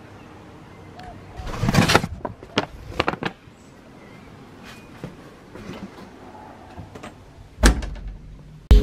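Handling noises: a few light clicks and knocks, a short scraping rustle about two seconds in, and a sharper knock near the end.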